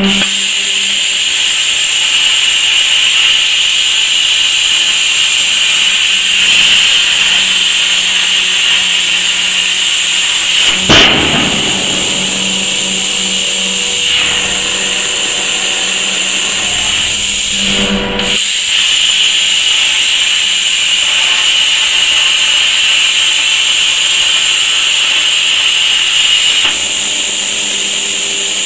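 Robotic plasma cutting torch running on a steel channel, a loud, steady high-pitched hiss. A short surge breaks it about eleven seconds in, and there is a brief dip about eighteen seconds in.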